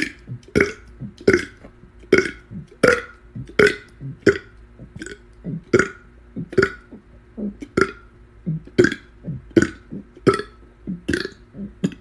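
A man burping the alphabet, each letter shaped in one short burp. It is a steady run of burps at about three every two seconds, stopping shortly before the end.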